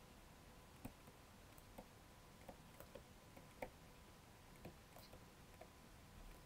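Near silence with faint, irregular clicks and taps of a stylus writing on a tablet screen.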